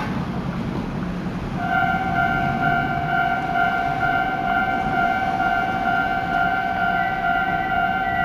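Japanese level crossing's electronic warning bell starting up about a second and a half in and then ringing steadily, over a low background rumble. A second, higher tone joins intermittently near the end.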